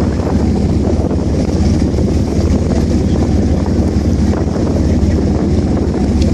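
A boat's engine running steadily, a constant low drone, with wind buffeting the microphone.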